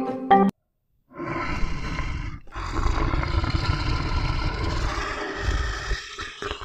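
A large animal's deep, rough roar-like growl in two stretches: a short one starting about a second in, then a longer one lasting about three and a half seconds.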